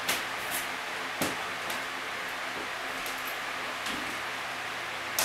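Climber's hands and rubber-soled climbing shoes knocking and scuffing against bolt-on holds and the wooden bouldering wall: about half a dozen short, sharp knocks, the strongest about a second in and near the end, over a steady background hiss.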